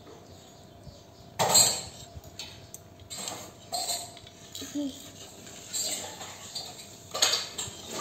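Dishware clinking and scraping as a small child eats from a dish: a handful of separate knocks, the loudest about a second and a half in.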